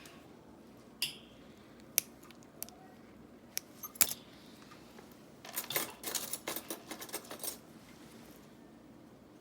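Small metal pedicure tools clinking: a few sharp separate clicks, then a busy run of clicking and scraping for about two seconds.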